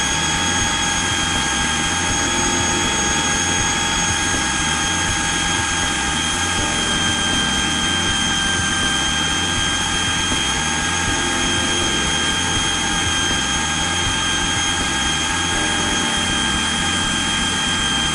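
Food processor motor running steadily at full speed with a high, even whine as it blends thick chickpea hummus paste.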